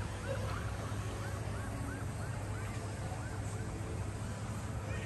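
Outdoor ambience: a steady low hum with a fast repeating high chirp, about three a second, that stops a little past halfway.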